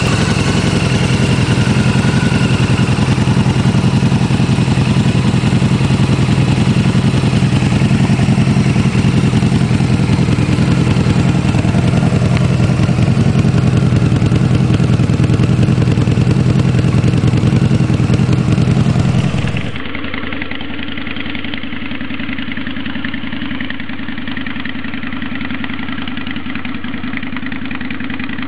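Harley-Davidson VRSCA V-Rod's liquid-cooled V-twin idling steadily through its exhaust. About two-thirds of the way in, the sound cuts abruptly to a second, quieter and duller recording of a motorcycle engine idling.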